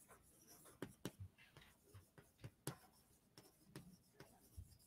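Faint chalk writing on a blackboard: a string of short, irregular taps and scratches as words are chalked up.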